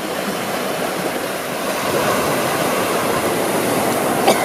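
Small waves washing onto a beach: a steady rushing noise that swells a little about two seconds in.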